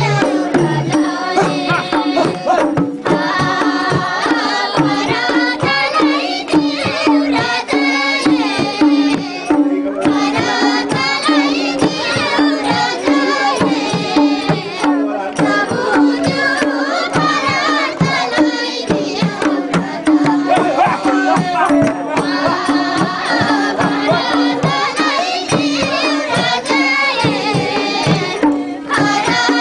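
Nepali folk dance music: singing over a steady, fast hand-drum beat.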